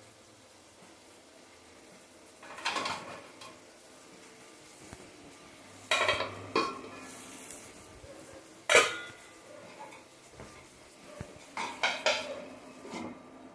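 Metal kitchenware clattering: a string of separate clinks and knocks of steel pots and utensils, with one sharp clank, the loudest, a little before the two-thirds mark and a quick run of clinks near the end.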